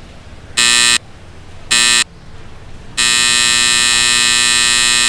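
Electric buzzer sounding: two short buzzes in the first two seconds, then one long continuous buzz from about three seconds in.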